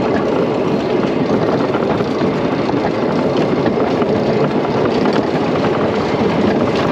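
Philadelphia Toboggan wooden roller coaster train rolling along its track, the wheels rumbling steadily with a constant run of small clicks and rattles, heard from the front car.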